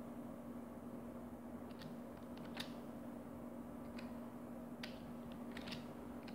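Computer mouse and keyboard clicking: about ten short, irregular clicks over a steady low hum.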